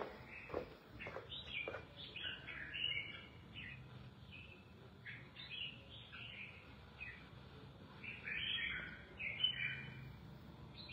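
Red-whiskered bulbuls chirping faintly: a scatter of short notes and brief warbled phrases throughout, with a few soft knocks in the first second or so.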